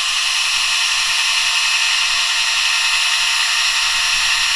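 Small electric drill running at a steady high speed, giving an even, high-pitched whine.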